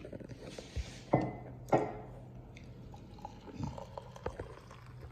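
Kitchen clatter while making coffee: two sharp knocks close together about a second in, then a few lighter clicks and taps, over a steady low hum.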